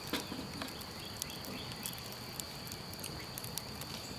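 Wood campfire crackling, with irregular sharp snaps and pops, the loudest just at the start, over a steady high-pitched insect drone.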